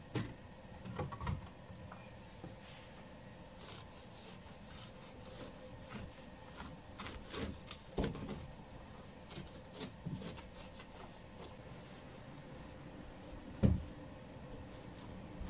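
Lightly dampened microfibre cloth rubbed over a car's painted plastic bumper in the number-plate recess: a run of short, faint scrubbing strokes, with one louder knock near the end.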